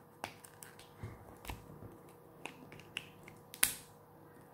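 Small cardboard lipstick box being handled and opened: scattered light clicks and taps of the packaging, with one sharper click about three and a half seconds in.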